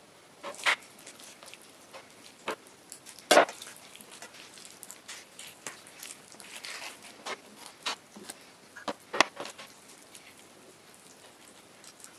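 Kitchen knife cutting raw chicken on a plastic cutting board: irregular clicks and knocks of the blade against the board and wet handling of the meat, the loudest knock about three seconds in.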